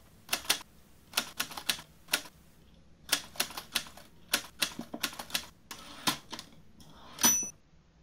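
Manual typewriter typing: an irregular run of sharp keystrokes in small clusters, ending near the end with a louder strike and a brief high ring like the carriage bell.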